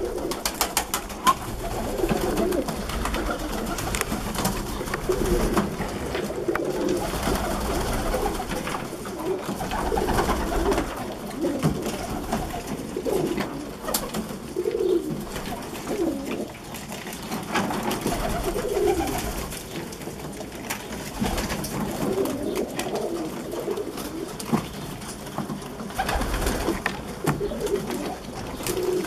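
Domestic pigeons cooing over and over in a low, overlapping chorus while they peck at chopped greens in a tray, with scattered small clicks throughout.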